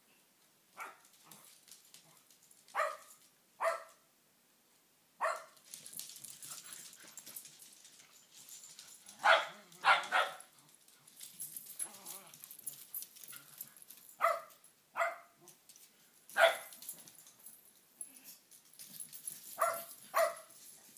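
Shetland sheepdogs barking: about a dozen short, sharp barks, many coming in quick pairs, with pauses of a second or more between them.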